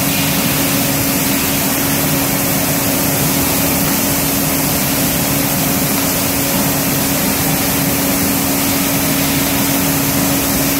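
Paint-spraying equipment running steadily: a constant hiss with an unchanging motor hum underneath.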